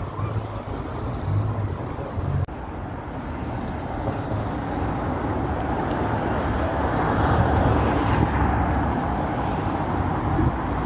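Street traffic noise from passing cars, a steady rush that grows louder from about halfway through.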